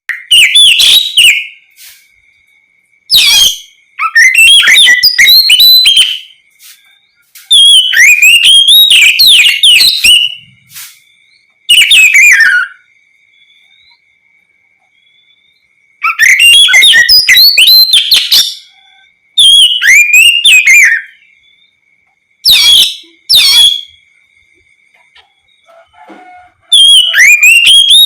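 Oriental magpie-robin singing loud, varied whistled phrases of rapid gliding notes, in bursts of one to three seconds with short pauses between.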